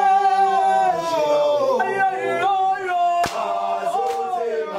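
Male voices singing unaccompanied, with long held notes that glide between pitches; a sharp click about three seconds in.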